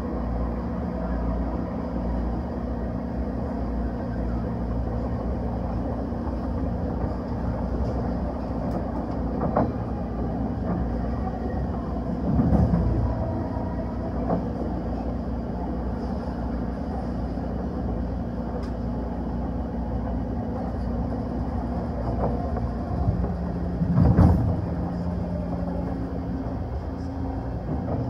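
Passenger train rolling along the track, heard from on board: a steady rumble of wheels on rail with humming tones. Two louder jolts swell up, about halfway through and again near the end.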